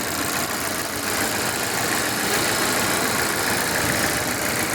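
Volvo XC90 PHEV's 2.0-litre four-cylinder petrol engine idling steadily while misfiring, a fault the owner takes for a failing head gasket.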